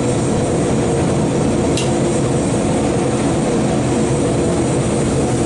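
Lit blacksmith's forge and its blower running: a steady, loud hum and roar with no let-up. A brief high tick sounds about two seconds in.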